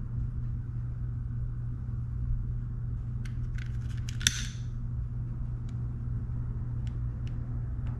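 Light clicks and taps of small rod-repair parts being handled, over a steady low hum. About four seconds in comes a sharper click with a short hiss.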